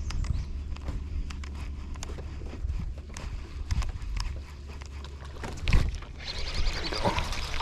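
Handling noise in a fishing boat: scattered clicks and knocks over a steady low rumble, with one louder thump about six seconds in, followed by a brighter hiss of splashy water noise.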